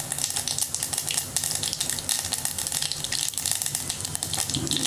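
Mustard seeds, cumin, fenugreek and chana dal sizzling in hot oil in a stainless steel pot, a steady hiss full of fine crackles as the seeds splutter: an Indian tempering.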